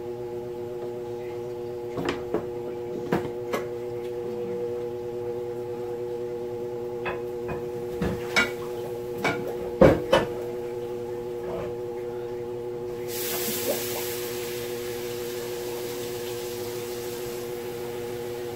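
Kitchen work sounds: scattered light knocks and clatters of utensils and cookware, the loudest about ten seconds in, over a steady hum. About thirteen seconds in a hiss starts and runs for about four seconds.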